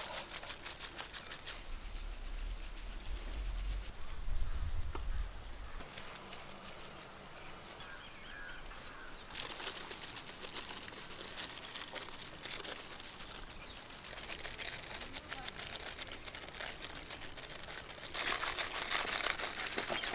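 Block of mozzarella rubbed fast against a flat metal hand grater: rapid dry rasping scrapes, heaviest near the end. A low rumble sits under it a few seconds in.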